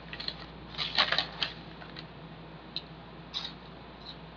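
Pea crisps being chewed: dry crunching, heaviest in a cluster about a second in, then a few single crunches further apart.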